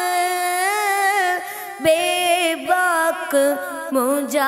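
A boy singing an Urdu manqabat solo and unaccompanied, drawing out the words of a line in long, ornamented held notes.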